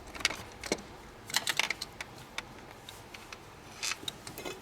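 Scattered sharp clicks and knocks of hand tools and metal parts as boost pipes are being removed from the engine bay, with a small cluster of them about a second and a half in.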